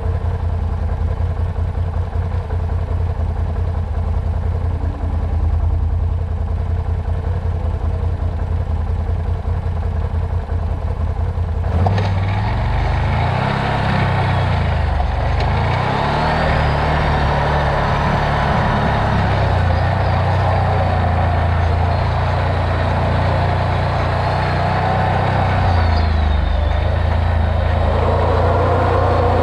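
A vehicle engine running. For about twelve seconds it holds a steady low hum. Then, after a click, its pitch starts to rise and fall as it is driven, with a rougher rumbling noise on top.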